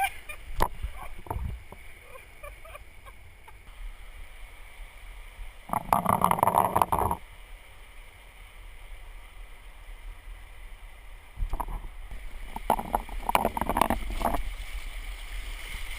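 Raft oar strokes splashing and churning through river water, picked up close because the camera is mounted on the oar. There is one loud stroke about six seconds in and a run of strokes a few seconds before the end, with the river's steady rush in between.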